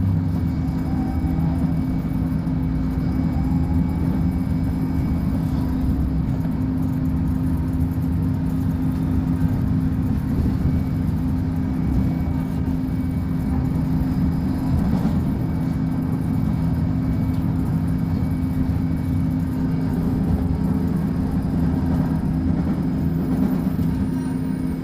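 Diesel engine of a Volkswagen 17-280 OT bus running steadily, a constant low hum that neither revs up nor dies away.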